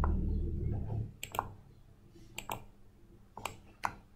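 Computer mouse clicking: a few sharp clicks, some in quick pairs, about once a second after the first second. A dull low rumble fills the first second.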